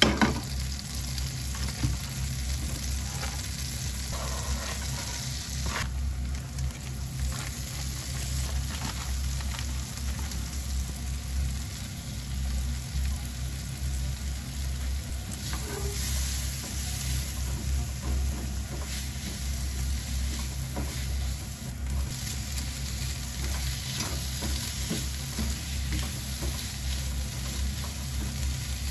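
Frying pan sizzling: butter melting in hot oil, then diced vegetables and shrimp frying while a spatula stirs and scrapes the pan, with frequent short scrapes over a steady sizzle and a low hum. A sharp clank right at the start as the pan is set down on the gas burner's grate.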